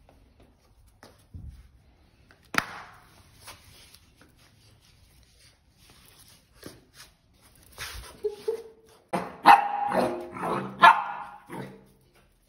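Pit bull puppy barking in play, a quick string of short barks in the last three seconds. A few scattered taps and knocks come before it.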